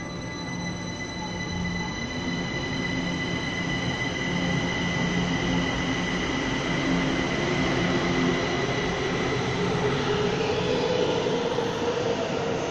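Kaohsiung MRT electric train heard from inside the car as it pulls out of a station and speeds up into the tunnel: a steady high whine, then a motor tone that climbs in pitch in the second half while the running noise grows louder.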